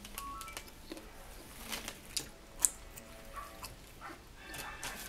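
Close-miked eating sounds: sweet corn being bitten and chewed, with wet mouth clicks and smacks and a few sharp crunchy snaps about two seconds in.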